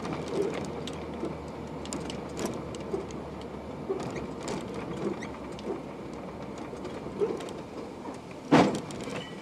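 Cabin noise of a vehicle driving, with steady road rumble and many small rattles and clicks. Near the end comes a single loud thud as it rear-ends the car ahead.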